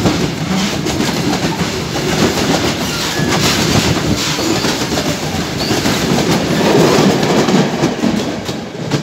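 Heavily loaded freight train's wagons rolling past at close range, their wheels clattering on the rails in a loud, continuous rumble that eases off near the end as the last wagon goes by.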